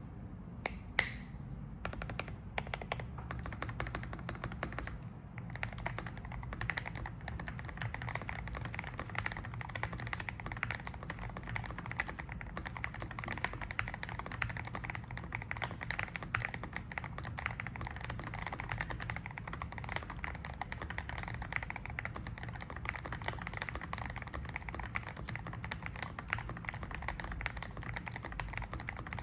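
Typing on a Keychron V5 Max mechanical keyboard fitted with lubed Keygeek Y2 linear switches and a tape-modded PCB: a few separate key presses, then fast, continuous typing with a deep, muted clack.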